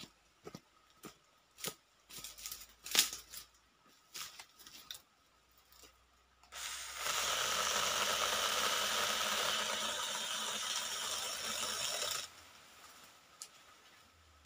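Scattered crackles and clicks of footsteps and handling on dry palm fronds, then, about halfway through, a battery-powered mini chainsaw starts and runs steadily for about five seconds as its chain cuts through a thin stick, stopping abruptly near the end.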